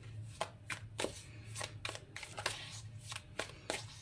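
A tarot deck being shuffled by hand: about a dozen short, irregular card snaps.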